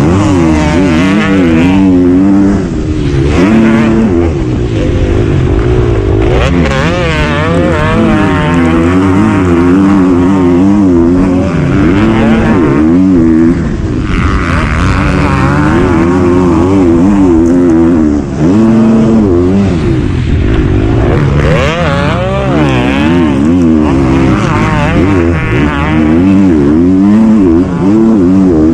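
Motocross dirt bike engine heard from on board, revving hard and easing off again and again, its pitch rising and falling as the rider works the throttle around the track.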